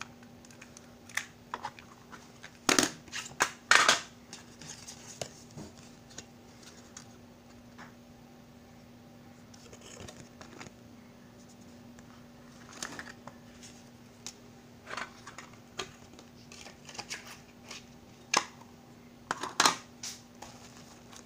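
Plastic audio cassettes and their cases being handled: scattered clicks, clacks and short scrapes of hard plastic picked up and set down on a hard surface. The loudest cluster comes about three seconds in and again near the end, over a faint steady hum.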